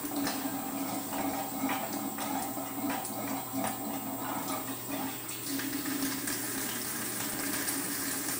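Synthetic coolant rushing and gurgling into a Watts whole-house filter canister as its clear housing fills, with a steady pump hum underneath.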